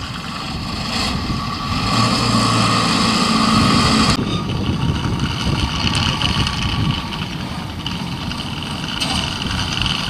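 Rice combine harvesters' engines running with a steady drone, wind buffeting the microphone. A held tone sounds over the drone for the first few seconds and the sound changes abruptly about four seconds in.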